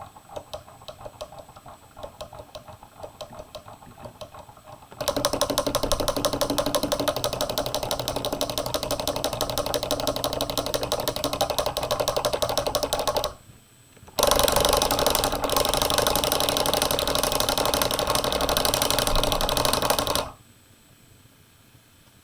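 A permanent magnet driven back and forth by an electromagnet on an electronic oscillator, rattling in its housing. It starts as faint rapid ticking; about five seconds in it becomes a loud, fast clicking buzz, which stops for about a second midway, resumes, and cuts off near the end.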